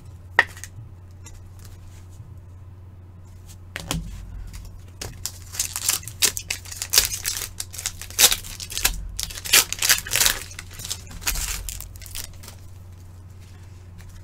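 Trading-card pack wrapper being torn open and crinkled: a sharp click about half a second in, then from about four seconds in a run of tearing and crinkling that lasts about eight seconds.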